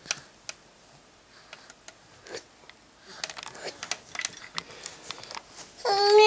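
Scattered light clicks and taps. Near the end a toddler starts crying: one loud, steady wail.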